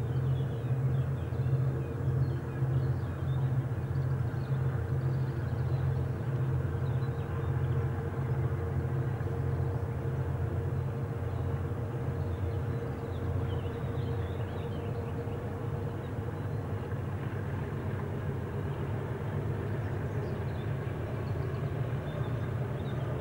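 English Electric Class 37 diesel locomotive working under power, its V12 engine giving a steady low drone as it hauls a train of wagons.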